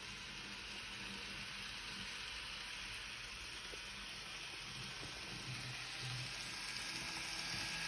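Steady hiss that grows slightly louder near the end, with a faint low hum underneath and no distinct handling clicks.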